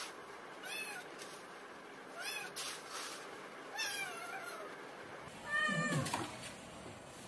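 Cats mewing: three high, short kitten mews about a second and a half apart, the third drawn out and falling, then a louder, lower meow near the end.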